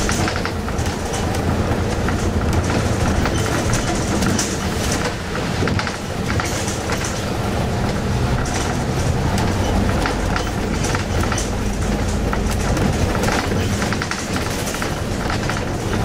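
Interior noise of a moving bus: the diesel engine running steadily under road noise, with frequent irregular clicks and rattles.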